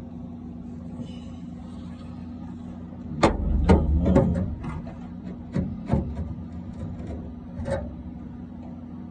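Knocks and scraping of sheet metal as a rusted car door is handled, a cluster of them about three seconds in, then a few single knocks, over a steady low hum.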